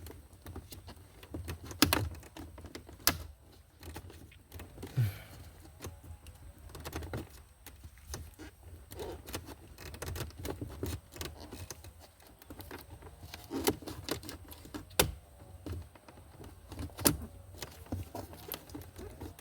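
Scattered clicks and knocks of a plastic dashboard trim panel being handled and pressed into place, with several sharp snaps among them as its tabs are worked in.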